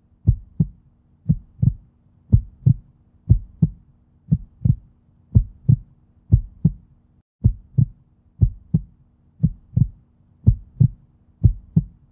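Heartbeat sound effect: a double 'lub-dub' thump about once a second, steady throughout, over a faint low steady tone.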